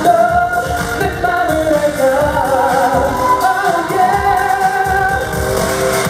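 Live K-pop music played loud through a concert PA: a boy group singing a wavering melody over a backing track with a steady drum beat.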